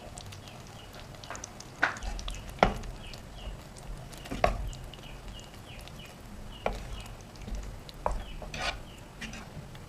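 Kitchen utensils knocking and scraping during cooking: about six sharp, irregular knocks, the loudest about two and a half seconds in, over a faint hiss.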